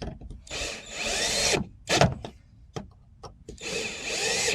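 Power drill run in two short bursts of about a second each, its motor whining, with a sharp knock between them.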